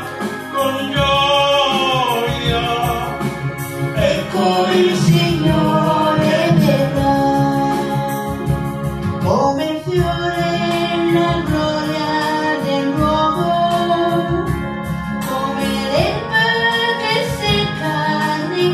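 A woman and a man singing an Italian hymn to electronic keyboard accompaniment of held chords, with a steady ticking beat.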